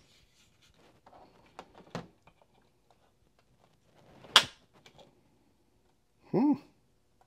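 Sig P365 Fuse's striker-fired trigger breaking with a single sharp dry-fire click about four seconds in, pulled by a digital trigger pull gauge, after a few soft handling clicks of the pistol and gauge.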